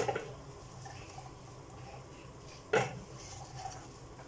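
Two sharp clatters of kitchenware, one right at the start and another a little under three seconds in.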